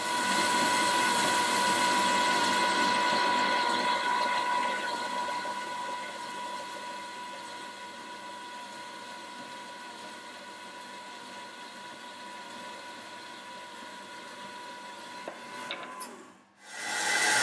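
Metal-cutting bandsaw running and sawing through a metal bar, a steady whine from the blade and motor. It is louder for the first few seconds, then settles lower, and drops out briefly near the end before starting again.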